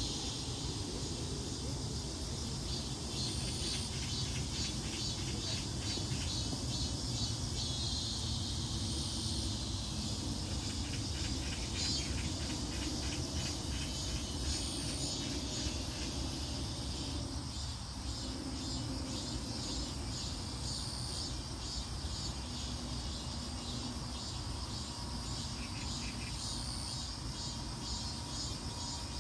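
Insects chirping in dense, rapid pulsed trills with steady high-pitched buzzing, over a low rumble.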